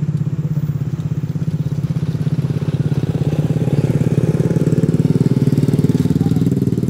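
An engine running steadily with a fast, even throb, a little louder through the middle.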